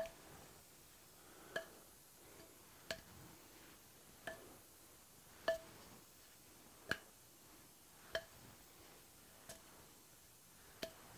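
A wooden handle flipped end over end and caught in the hands: a light clack at each catch, nine evenly spaced, about every 1.3 seconds.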